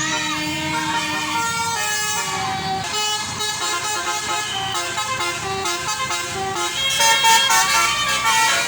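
Tour bus's 'basuri' musical air horn (telolet) playing a tune of short stepped notes, with rising-and-falling warbles at the start and again near the end. A low engine rumble comes in about seven seconds in.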